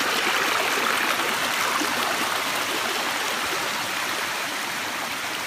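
Shallow water flowing fast over granite rock, a steady rushing noise with no pitch that eases slightly toward the end.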